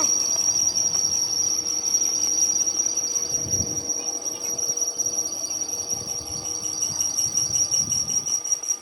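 Insects chirring in one steady, high-pitched, unbroken tone.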